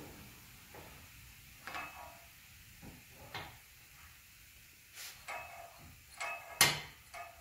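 Light metal taps and scrapes of a steel alignment bar being turned and slid in the axle jig spacer at the axle tube end, with a louder metal clank about six and a half seconds in, as the tube is checked for straightness after heat-straightening.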